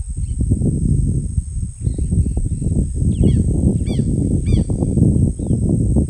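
Outdoor nature soundscape: a steady high-pitched insect drone, and a bird giving about three quick arched calls half a second apart a little after halfway, all over a heavy, irregular low rumbling noise.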